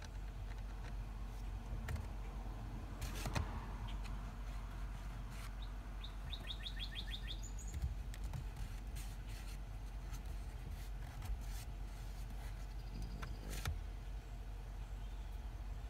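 A bird gives a quick run of about eight short, high chirps some six seconds in, followed by a brief higher note. Underneath is a steady low rumble, with a few sharp clicks and knocks, the strongest about three seconds in and again near the end.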